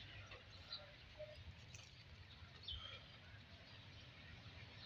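Faint, scattered bird chirps over a low, steady background rumble.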